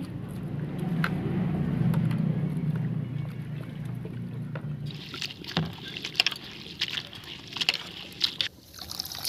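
Spinach leaves being swished and squeezed by hand in a metal bowl of water, with water sloshing and splashing and wet leaves rustling, busiest in the second half. A low rumble is loudest in the first few seconds and fades out about halfway.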